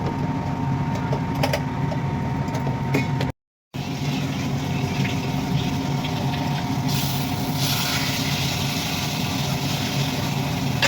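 A steady low mechanical hum that drops out completely for a moment a little over three seconds in, with a short hiss about seven seconds in.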